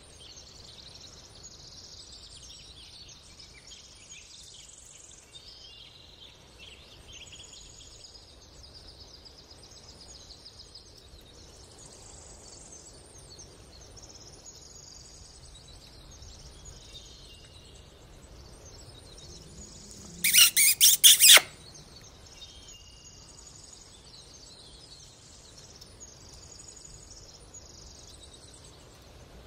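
Faint chirping of small birds throughout. About twenty seconds in comes a sudden burst of four or five loud clicks.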